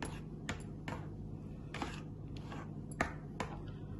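Metal spoon stirring thick pudding mixture in a bowl, giving about seven light, irregular clinks as it knocks against the bowl's side.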